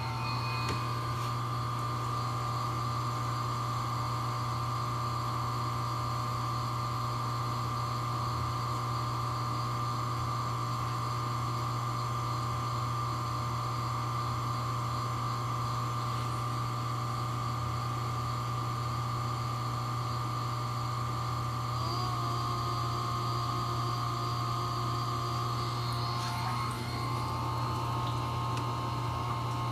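Vortech MP60 aquarium powerhead running at constant speed with a steady electric hum and whine. About two-thirds of the way through, and again near the end, its tones shift in pitch and the noise swells a little. This is the intermittent surge in operating noise that the owner hears from both of his units.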